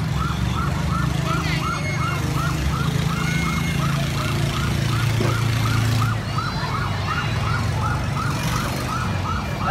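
A siren yelping, about four quick rising-and-falling sweeps a second, steady throughout, over the low drone of boat engines.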